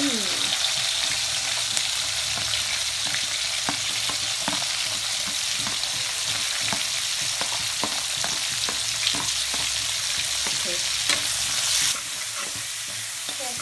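Sliced onions sizzling in hot oil in a kadai, stirred with a metal spatula that clicks and scrapes against the pan many times. The sizzle drops a little near the end.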